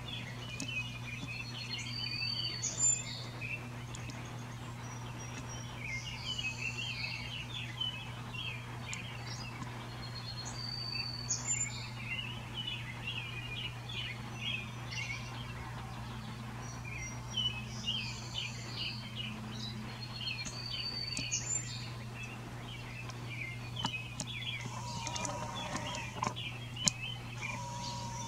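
Birds chirping in a dense chorus throughout, with one bird repeating the same short song phrase three times, over a steady low hum.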